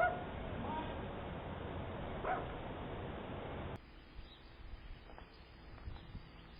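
A dog whining and yipping briefly a few times over background noise. About four seconds in, the sound cuts to a much quieter faint hiss with a few light knocks.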